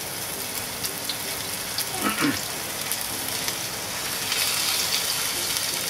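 Flour-dusted pork loin steaks sizzling in hot oil in a frying pan, with a steady hiss and scattered crackles. The sizzle grows louder about four seconds in as another steak is laid into the pan.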